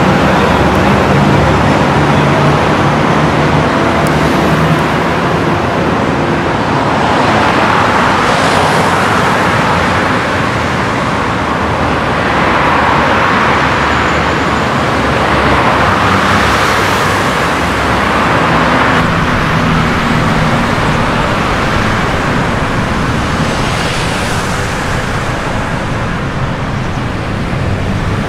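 Street traffic noise: engines running steadily, with several vehicles passing by one after another.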